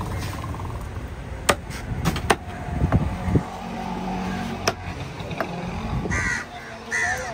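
A heavy cleaver chopping fish on a wooden log chopping block: a few sharp, separate chops. Road traffic runs underneath.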